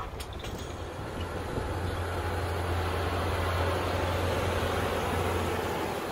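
Case IH Steiger articulated four-wheel-drive tractor working under load with a 12-bottom moldboard plow: a steady low diesel hum with a rushing noise above it. It grows louder toward the middle and eases off near the end.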